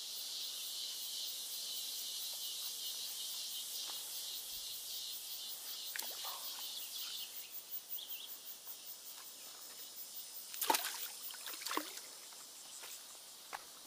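Steady high-pitched insect chorus, slowly fading, with two short sharp knocks near the end from handling the fishing tackle.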